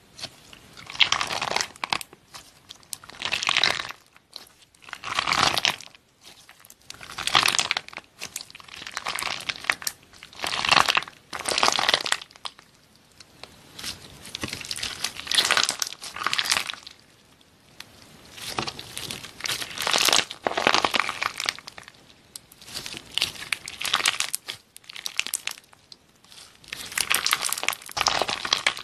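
Clear slime wrapped around a ball of jelly beads being squeezed and pulled apart by hand, crackling and crinkling in repeated bursts of about a second each, with short pauses between squeezes.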